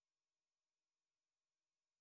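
Near silence: an essentially empty audio track with no audible sound.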